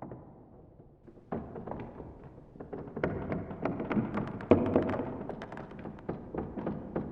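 A dense clatter of knocks, taps and thumps that grows louder to a peak a little past the middle, then dies away.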